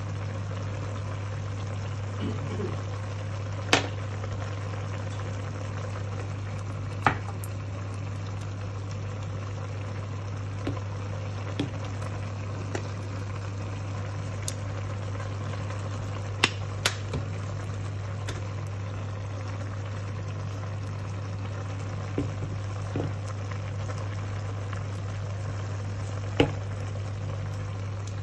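Pot of chicken pieces cooking on the stove: a steady simmering hiss with a handful of sharp pops scattered through, over a steady low hum.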